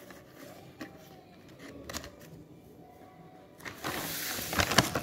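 A cardboard art-supply box being handled on a tiled floor: a couple of light taps, then rustling and a few sharp clicks from about four seconds in as the box is moved.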